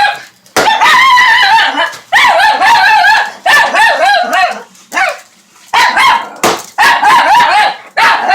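Pet dog vocalizing in a run of about six long, wavering, yodel-like howl-barks, each about a second long with short pauses between.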